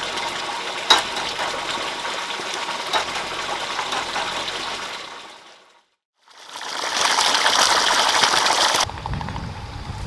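A steady rushing noise, like running water, with a few light clicks. It fades out around the middle and comes back louder for a couple of seconds near the end.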